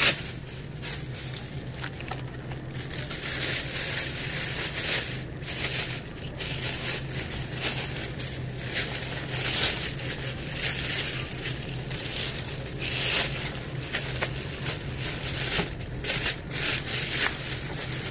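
Thin plastic shopping bag rustling and crinkling on and off as it is opened and handled, over a steady low hum.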